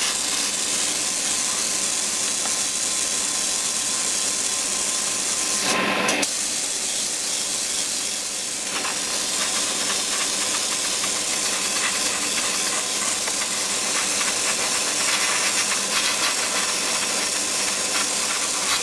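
Airbrush spraying paint, a steady hiss of air, over the continuous run of a spray booth's extraction fan. A brief louder burst comes about six seconds in.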